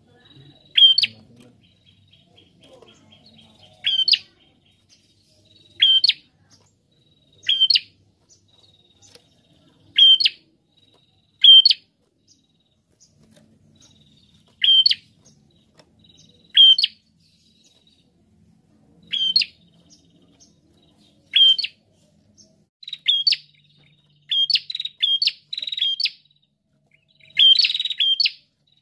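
A rufous-headed prenjak songbird calling with sharp, loud, high chip notes every couple of seconds, with a faint thin trill between the first few. Near the end the notes come faster, in quick clusters.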